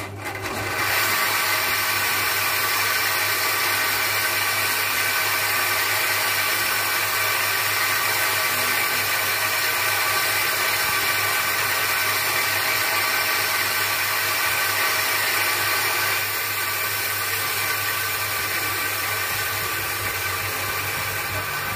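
Bench grinder motor humming while a synthetic cat's-eye gemstone is pressed against its spinning sanding wheel, a steady grinding hiss that starts about a second in. It eases slightly near the end.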